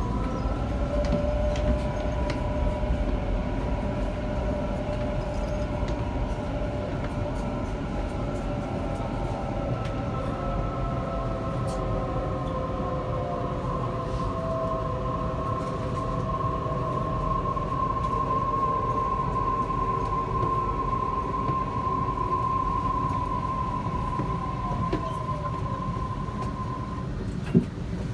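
Interior of a Waratah Series 1 electric train slowing into a station: the traction motors whine in several steady tones, some of them sliding down in pitch as it brakes, over a low rumble of wheels on rail. The whine stops near the end as the train comes to a halt, followed by a single sharp click.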